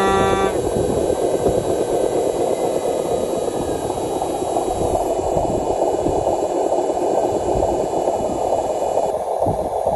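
Radio-controlled model Hino 500 dump truck running steadily under load as it climbs with a bed of dirt, a continuous noisy hum. A horn cuts off about half a second in.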